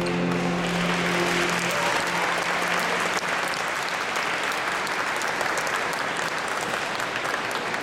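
A string trio's last held chord fades out over the first second or so, and an audience applauds steadily.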